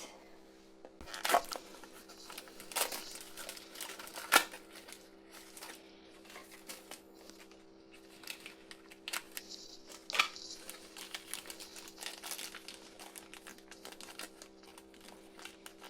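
Plastic packaging of a Shopkins blind crate crinkling and tearing as it is opened by hand, with scattered sharper crackles and clicks.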